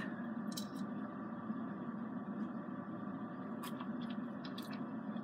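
Steady low room noise with a few faint clicks, like ice shifting in a stainless steel tumbler as iced coffee is sipped.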